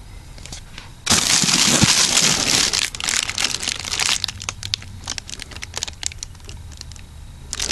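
Clear plastic wrapping on a brick of firecrackers crinkling as it is handled. It starts loud about a second in, keeps up for about two seconds, then thins to scattered crackles that die away.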